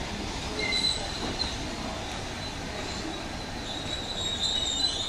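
A 4-BIG electric multiple unit coasting slowly into a platform, its wheels squealing in thin high-pitched tones over a low rolling rumble. The squeal comes briefly about a second in and grows stronger and longer near the end.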